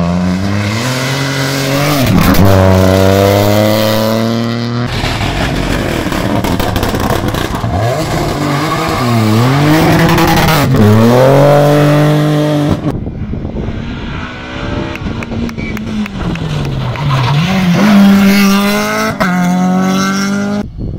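Rally car engines at full throttle, passing close at speed: the engine note climbs and drops again and again as the drivers shift gears and lift for corners. Several passes follow one another, each cut off abruptly.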